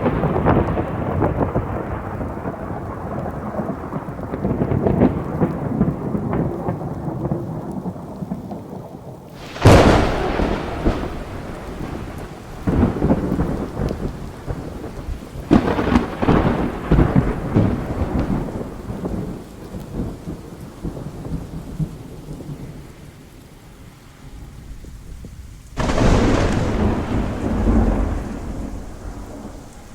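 Thunder from a storm rolling in: continuous rolling rumbles, broken three times by a sudden loud crack that trails off into rumbling, about a third of the way in, about halfway, and near the end.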